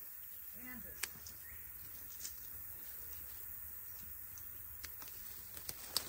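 Faint summer outdoor ambience: a steady high-pitched drone of insects over a low rumble, with a few soft clicks scattered through it.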